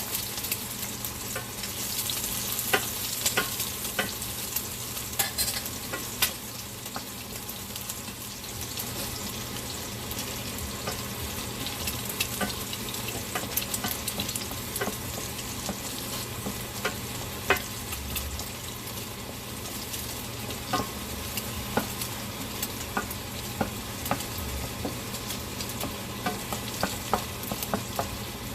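Eggs, garlic and chopped red pepper sizzling in hot oil in a frying pan, with frequent sharp taps and scrapes of a utensil stirring against the pan.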